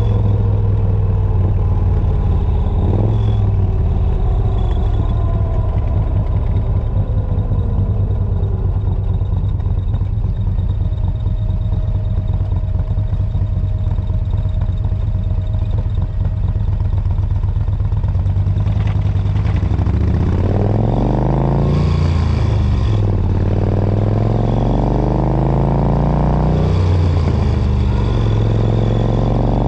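Morgan 3 Wheeler's air-cooled V-twin engine, heard from the cockpit. It slows and settles to a steady run while stopped. About two-thirds of the way in it pulls away, rising in pitch through the gears, with two breaks for upshifts.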